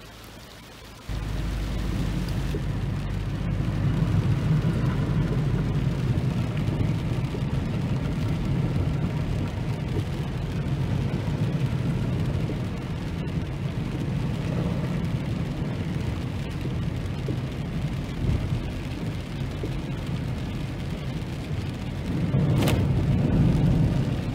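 Steady heavy rumbling noise inside a car driving in a downpour: rain on the car body and road noise. It starts suddenly about a second in and swells briefly near the end.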